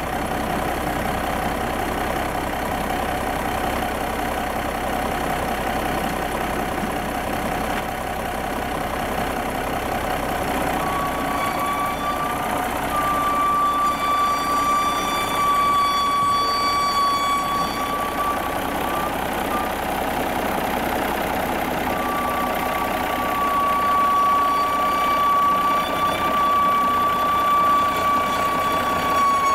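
John Deere 6030 tractor's six-cylinder diesel engine running under load as it tows a dead forklift. A steady high squeal joins about a third of the way in, drops out briefly, and returns near the end.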